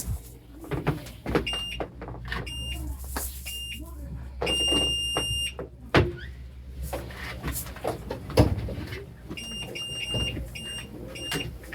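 An appliance's electronic beeper sounding a string of short, high beeps in an uneven pattern, with one longer beep about four and a half seconds in and more short beeps near the end. Knocks and kitchen clatter and a steady low hum run underneath.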